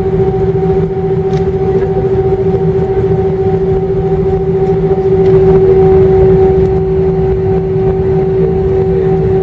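Airbus A318 taxiing, heard from inside the cabin: a steady jet-engine whine over a low rumble, growing a little louder for a moment about halfway through.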